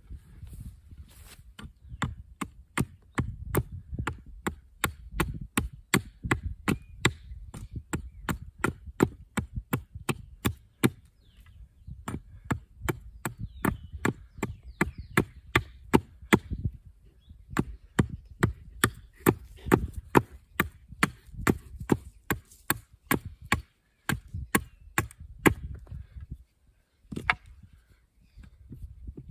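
Small hatchet chopping at a wooden pole in quick, light, repeated strokes, about three a second, with a few short pauses.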